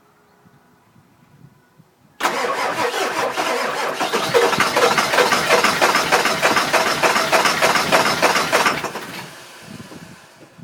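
2000 Ford F-250's 7.3 diesel being cranked by the starter in a steady pulsing rhythm, beginning suddenly about two seconds in and dying away near the end without the engine running: a no-start, which the owner suspects is caused by the injectors.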